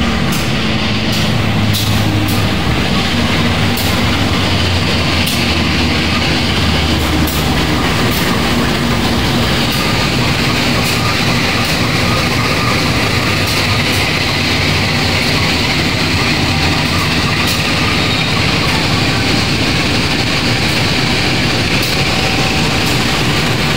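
A CC 201-class (GE U18C) diesel-electric locomotive passing close by with its engine humming, followed by its passenger coaches rolling past, with wheels clicking over the rail joints.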